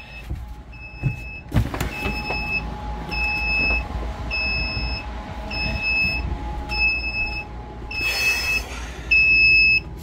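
An electronic alarm beeping steadily at one high pitch, a beep of about half a second repeating a little more than once a second, over low rumbling and handling noise, with a short rush of noise near the end.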